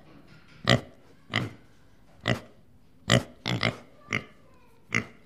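Deer calling: short, sharp calls at irregular intervals, about nine in five seconds, with a quick run of three a little past the middle.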